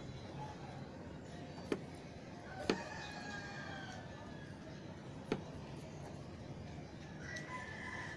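Faint bird calls: one long, drawn-out call with a slightly falling pitch, and a second call near the end. Three short sharp clicks are heard along the way.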